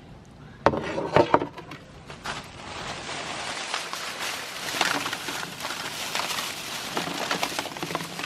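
Crisp pani puri shells cracking and crunching as they are crushed in a meat grinder: a few sharp knocks near the start, then a continuous crackle of small snaps.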